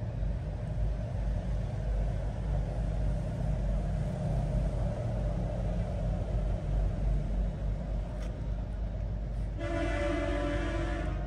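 A steady low rumble, with one flat horn blast lasting about a second and a half near the end.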